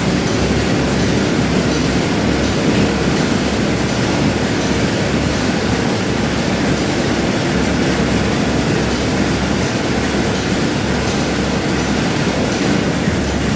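Railway cars rolling along the track with a steady, unbroken rumble.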